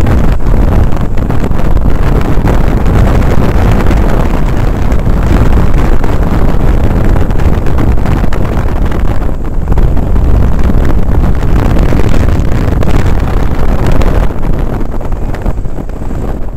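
Motorcycle riding at speed, heard from the rider's helmet camera: heavy wind rush on the microphone over the engine's running drone. It eases a little near the end as the bike slows.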